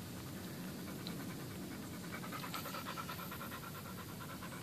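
American Staffordshire Terrier panting rapidly and steadily.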